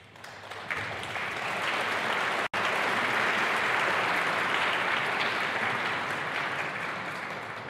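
Audience applauding, swelling over the first couple of seconds and easing a little toward the end, with a split-second dropout about two and a half seconds in.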